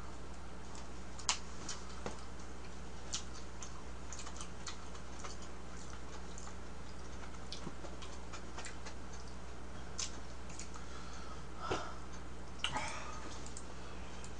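Quiet room tone with a steady low hum and a handful of scattered light clicks and taps, a few of them close together near the end.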